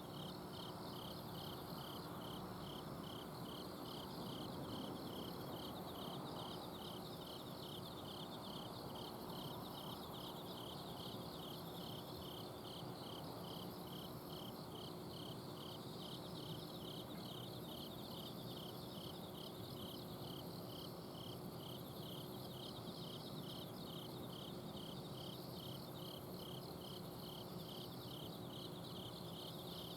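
A chorus of autumn crickets and other singing insects at night: one insect chirps about twice a second at an even pace over continuous high trilling from others. A steady low hum from an outdoor air-conditioner unit runs underneath.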